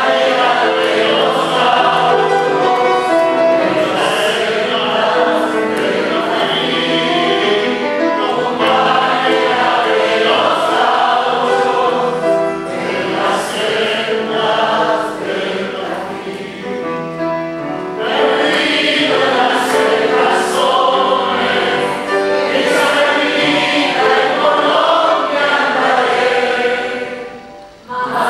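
A man singing an Argentine folk song in a full, operatic voice, accompanied by grand piano. The singing eases off for a few seconds in the middle and breaks off briefly just before the end.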